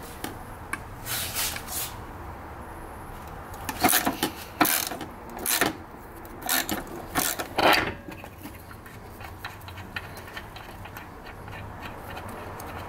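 Socket ratchet clicking in short, irregular strokes while loosening the rear shock absorber's top-mount bolts, with the other nut held by a wrench. The strokes stop about eight seconds in.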